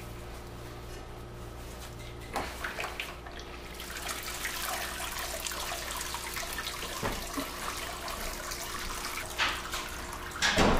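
Wort streaming and dripping back into the brew kettle from a mesh bag of wet hops as it is lifted out and drained, starting about four seconds in. A low hum stops about three seconds in, and there is a sharp knock near the end.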